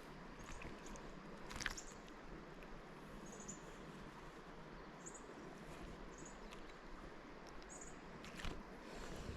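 Steady rush of river water with faint high chirps now and then, and two brief sharp knocks, one near the start and one near the end.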